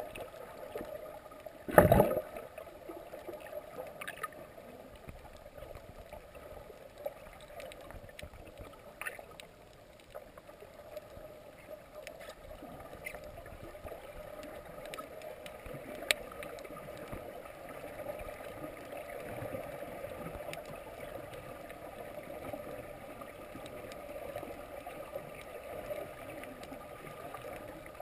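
Muffled underwater ambience heard through an action camera's waterproof housing: a low steady hum of water noise with a few faint clicks, and one loud thump about two seconds in.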